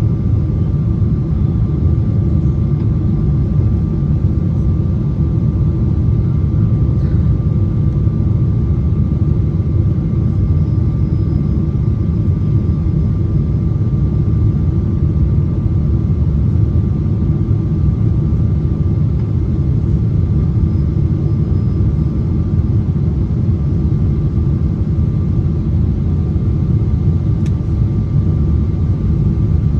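Steady cabin rumble inside a Boeing 777-300ER on approach with the landing gear down: airflow and GE90 engine noise, with a few faint steady tones.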